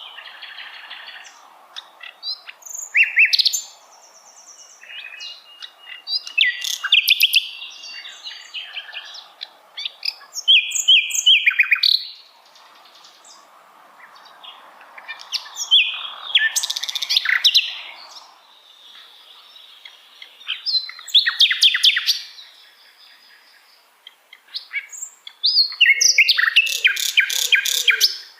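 Common nightingale singing: a series of short, loud phrases of rapidly repeated notes and clear whistles, separated by pauses of one to a few seconds.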